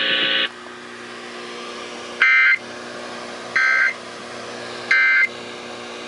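Emergency Alert System end-of-message data burst played through a stereo's speakers: three short, harsh warbling bursts, each about a third of a second long and about 1.3 seconds apart, marking the end of the warning. A low steady radio hum runs underneath.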